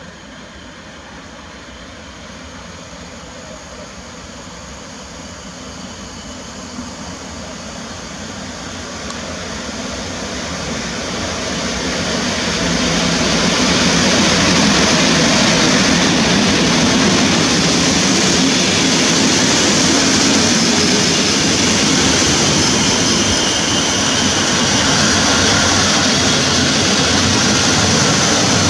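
An EP07 electric locomotive hauling a train of PKP Intercity passenger coaches runs into the station along the platform. The train's rumble grows steadily louder over the first half, then holds level as the coaches roll past close by.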